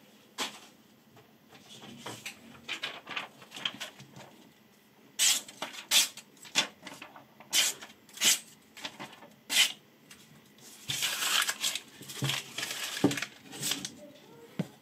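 Sharpened kitchen chef's knife slicing through sheets of paper to test its edge: a run of about eight short, crisp cuts in the middle. Then paper rustles and there is a knock near the end.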